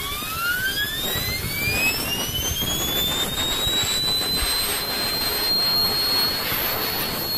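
Steel ball bearing spun up by a compressed-air blow gun: a whine that rises steadily in pitch over the first four seconds or so, then holds at a high, steady pitch, over the hiss of the air jet.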